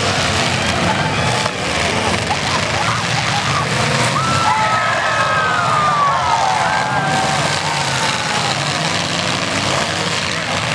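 Several demolition derby cars' engines running and revving hard, with loud, steady engine noise and crowd voices mixed in.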